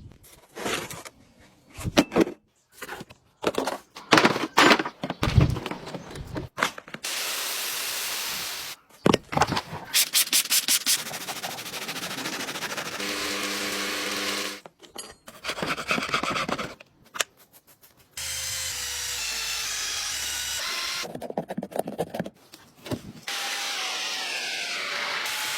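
A quick run of short, abruptly cut car-cleaning sounds: rapid brushing and scrubbing strokes alternating with stretches of steady hissing spray.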